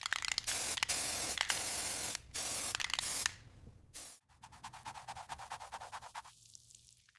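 Hissing spray with a brief break, stopping about three seconds in, followed by a run of quick, faint scratchy ticks.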